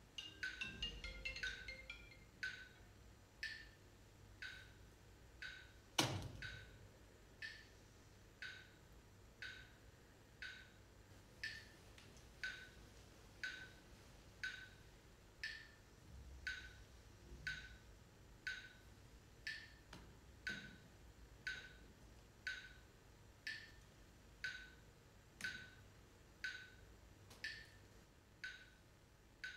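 Sparse percussion: a steady wood-block-like tick about once a second. There are a few mallet notes at the start, and one sharper, louder knock about six seconds in.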